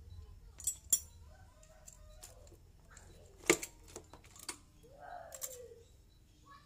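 Scattered metal clinks and knocks as the cylinder head of a Yamaha Jupiter MX engine is pried at with a steel rod and lifted off by hand. The sharpest clank comes about three and a half seconds in.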